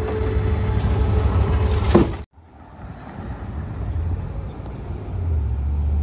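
Rear-loader garbage truck running close by, a steady low engine rumble with a steady whine over it and a sharp click about two seconds in. The sound then cuts out abruptly and returns fainter, with the truck's engine drone growing louder and steady from about five seconds in.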